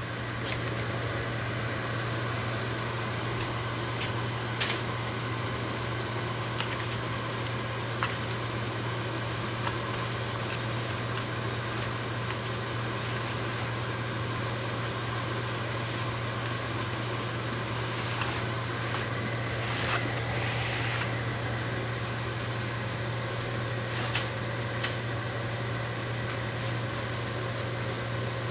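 Steady low mechanical hum of a running machine, with a few faint clicks and a brief rustle about twenty seconds in.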